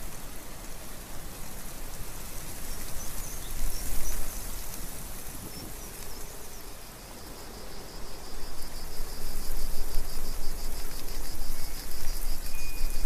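Rain falling while wind gusts over the microphone, giving a low rumble and swelling, uneven loudness. From about halfway in, a high rhythmic chirping of about four pulses a second joins it.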